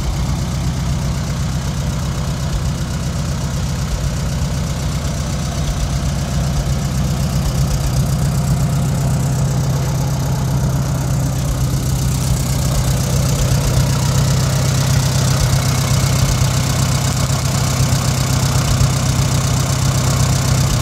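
McCormick W-6 Standard tractor's carbureted four-cylinder engine idling steadily, growing a little louder in the second half.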